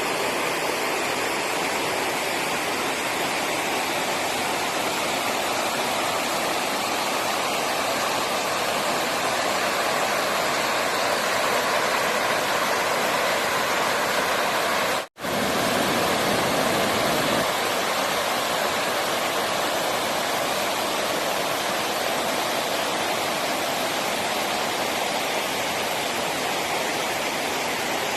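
Flowing water rushing steadily, with a split-second gap about halfway through.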